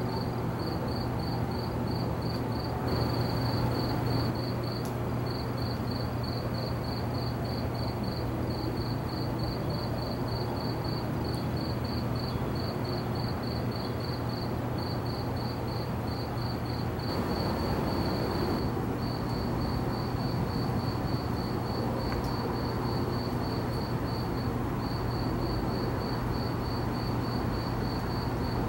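A cricket chirping steadily in short high-pitched pulses, about five a second, over a steady low hum and an even background hiss.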